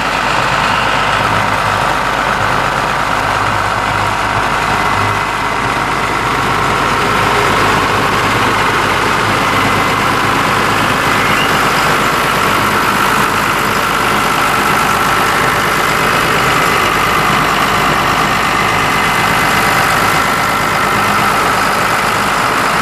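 Engines of portable flood-water pumps running steadily at constant speed.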